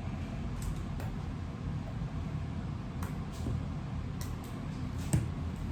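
Scattered small clicks and taps from an iPhone 6 and repair tools being handled during a battery replacement, over a steady low hum. The sharpest click comes about five seconds in.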